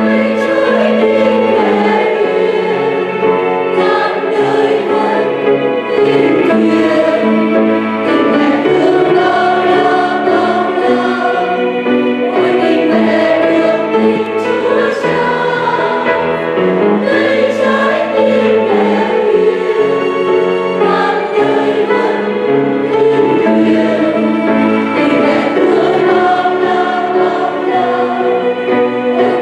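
A mixed choir of men's and women's voices singing a Vietnamese hymn, sustained melodic lines without a break.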